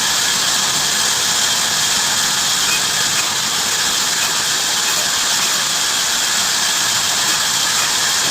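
Heavy-duty bandsaw running, a loud, steady high-pitched hiss and whine.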